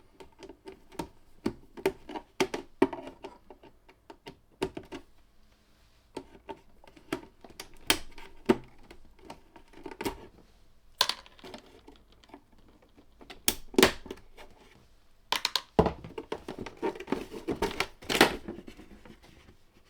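Irregular clicks, knocks and light rattles of hands working on a vintage hi-fi receiver's casing: undoing its plastic fasteners and handling the cover.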